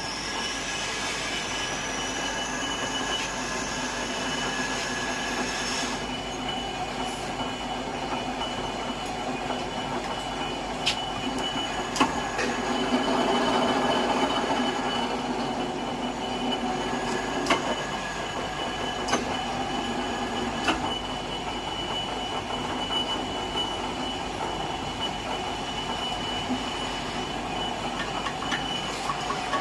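Multi-spindle tapping machine running: a steady mechanical whine with high ringing tones and a few sharp metallic clicks, growing louder for a couple of seconds about twelve seconds in.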